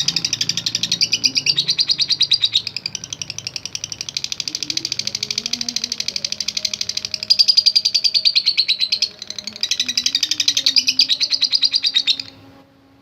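Lovebird chattering in a long unbroken trill (the 'ngekek panjang' of a fighting-trained male), a fast run of high notes many per second, with a short break about nine seconds in, then stopping abruptly near the end.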